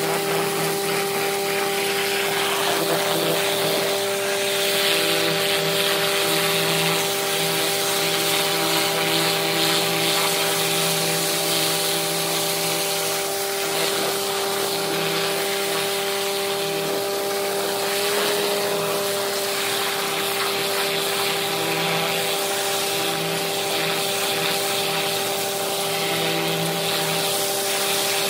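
High-pressure water jet from a pressure-washer wand blasting into a hole in broken pavement: a steady spray hiss over the constant hum of the machine driving it, its pitch shifting slightly about two-thirds of the way through.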